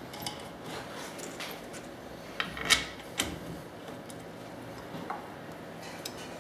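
Handling noise: a few light metallic clicks and knocks as a tangential knife head is unfastened and lifted off a CNC router's carriage, with the sharpest clicks a little after the middle.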